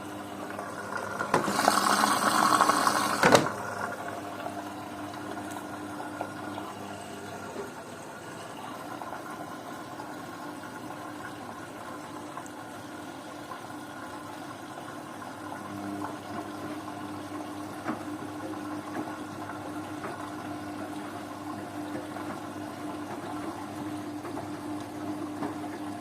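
Beko washing machine on a synthetics 50 °C wash. A loud rush of water runs for about two seconds and cuts off sharply, then the machine settles into a steady hum with water sounds.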